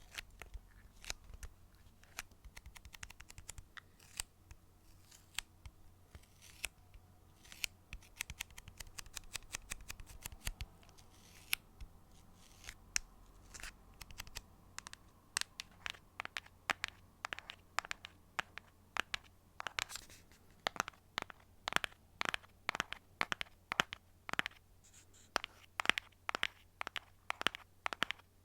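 Fingernails tapping and scratching on a box, a run of sharp clicks close to the microphone. The clicks are sparse and uneven at first, then come faster and more regularly from about halfway through.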